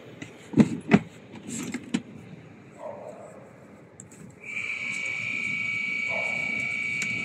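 A few sharp knocks and clunks as things are handled and moved in the truck. A little past the middle a steady high-pitched whine starts and keeps going.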